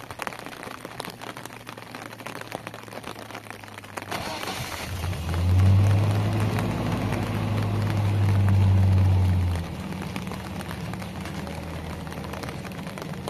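Rain pattering, then about four seconds in the engine of a Zamyad pickup truck starts and runs with a steady low hum. The hum is loudest for about four seconds, then drops back to a quieter idle.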